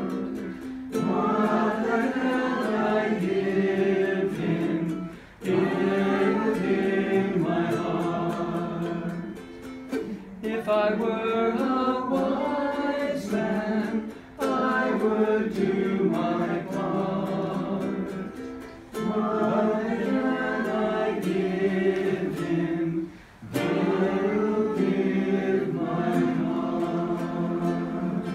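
A small group singing a Christmas song together, accompanied by a small guitar-like string instrument. The singing comes in phrases of about four to five seconds, with short breaks between them.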